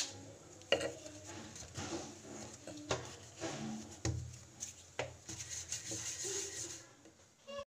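Steel kitchen utensils being handled at a counter: rubbing and scraping with a few sharp clinks about two seconds apart.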